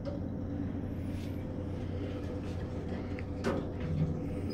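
Toshiba rope-type elevator car running with a steady low hum after its doors have shut. There is a single sharp click about three and a half seconds in.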